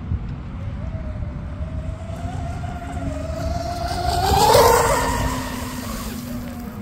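High-speed RC boat's twin Rocket 3670 1850kV brushless motors whining as the boat makes a close flyby. The whine climbs in pitch and grows louder as it approaches, peaks about four and a half seconds in, then drops away as it passes. Wind rumbles on the microphone throughout.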